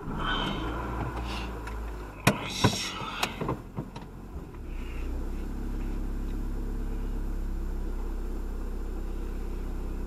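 Car heard from inside: several sharp clicks and knocks about two to three seconds in, then the engine running with a low steady hum.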